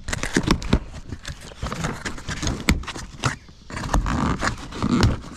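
Cardboard box being opened and handled: irregular scraping, rustling and small knocks of the flaps and cardboard.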